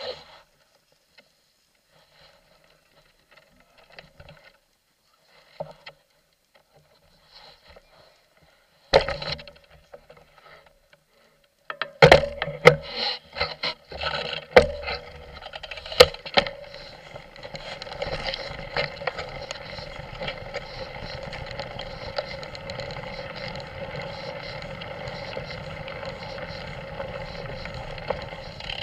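Mountain bike on a dirt and gravel forest track, heard through a camera mounted on the bike. It is quiet at first. Then from about twelve seconds in come sharp knocks and rattles as the bike goes over rough ground, settling into a steady rolling noise of the tyres and the rattling bike.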